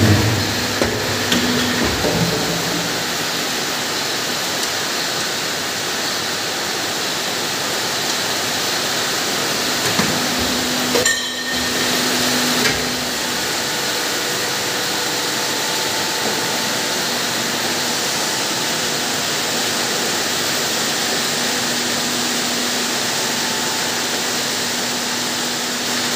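Plastic injection moulding machine running: a steady mechanical noise with a low hum, broken by a few sharp knocks near the start and again about ten to thirteen seconds in.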